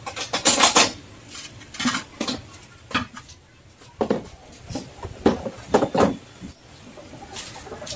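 Irregular metallic clanks and rattles of parts and tools knocking against a steel go-kart frame, coming in about half a dozen short clusters.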